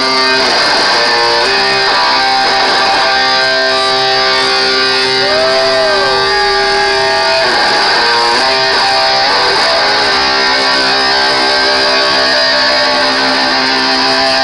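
Heavy metal band playing live: loud electric guitars holding sustained notes, with one note bent up and back down about five seconds in. The recording sounds harsh and poorly balanced.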